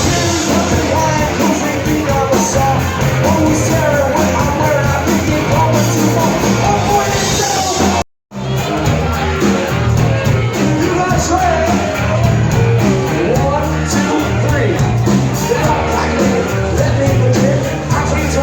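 Background music with singing; it cuts out completely for a moment about eight seconds in, then carries on.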